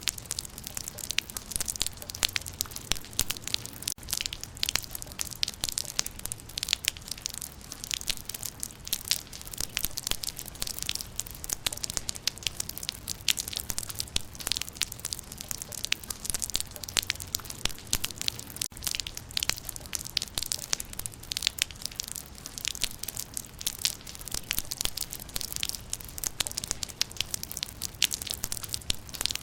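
Rain falling on leaves: a dense, steady patter of many sharp drop impacts on dry leaves and vegetation.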